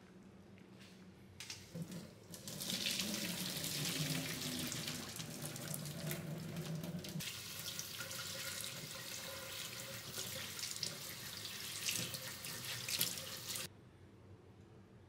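Water rushing into a stainless steel kitchen sink: a pot of hot boiled vegetables is drained into a mesh strainer, then rinsed under the running tap. The rush starts a second or two in, is deeper for the first few seconds, and cuts off suddenly near the end as the tap is shut.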